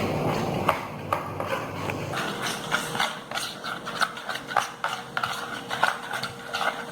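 White glue and yellow paint being stirred together in a container for slime, the utensil scraping and knocking against the sides with many irregular clicks.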